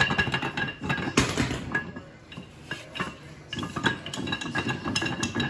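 Metal parts of a small-block Chevy 350 engine clinking and clattering as they are handled, a busy run of light metallic taps and knocks with a quieter stretch in the middle.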